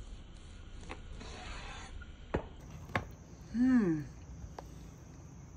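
Chef's knife slicing through smoked picanha on a wooden cutting board, with two sharp knocks of the blade on the board. The loudest sound is a short hummed vocal sound, falling in pitch, a little past halfway. Crickets make a steady high chirring from about halfway on.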